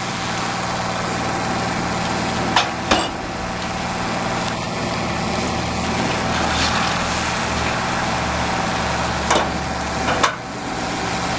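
Water rushing steadily through a Hydrovent hydraulic ventilation nozzle set into a burning shipping container, over a steady engine hum. A few sharp knocks: two close together about three seconds in and two more near the end.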